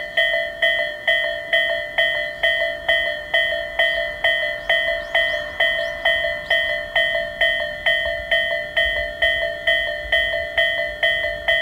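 Japanese railway level-crossing warning bell, the Tobu Railway electronic 'sound A' type, ringing at a steady pace of about two strikes a second, each strike decaying. A faint low rumble builds in the second half.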